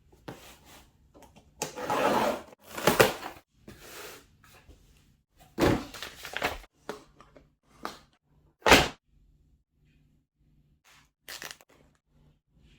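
Tablet box and packaging being handled during an unboxing: an irregular series of scrapes, rustles and knocks, with one sharp knock about two thirds of the way through.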